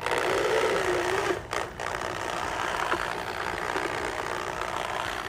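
Corded electric drill running a paint-mixer paddle through thick fish-bait paste in a plastic bucket, a steady motor whir with the paddle churning the mix. The sound briefly drops out twice about a second and a half in.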